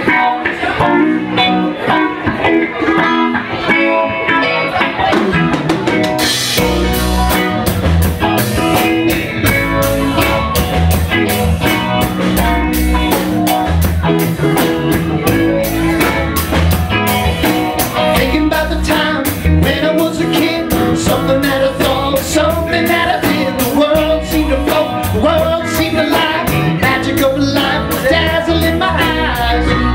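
Live rock band playing a song on electric guitars and a drum kit. A guitar plays alone at first; about six seconds in the drums and a low bass line come in and the full band plays on.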